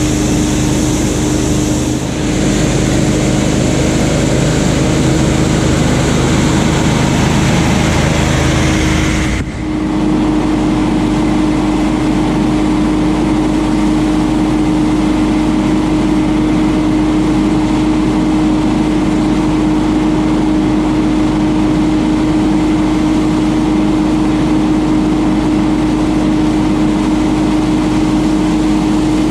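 Ferris FB2000 stand-on debris blower running loud and steady, its Briggs & Stratton Vanguard engine droning under the rush of the blower's air. About a third of the way in, the rushing air noise drops away abruptly, leaving a steadier engine drone with a strong hum.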